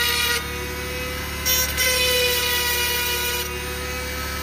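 Dremel rotary tool running with a steady whine as its grinding stone sharpens the cutters of a chainsaw chain. The stone bites into a cutter with a harsh grinding noise right at the start and again from about one and a half to three and a half seconds in.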